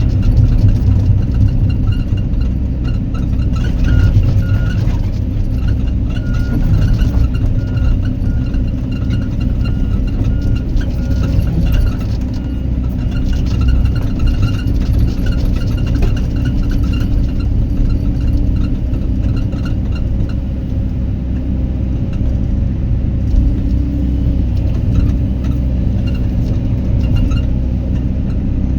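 Excavator diesel engine running steadily, with a faint high whine that comes and goes.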